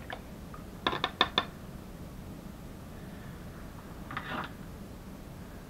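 Paintbrush clinking against a metal water can, four quick sharp clinks about a second in. Near four seconds in, the brush scrubs briefly in a pan of a watercolor paint set.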